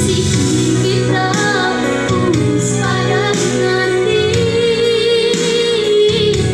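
A schoolgirl singing a Banten regional song solo into a microphone over instrumental accompaniment, holding one long note with vibrato from about four seconds in.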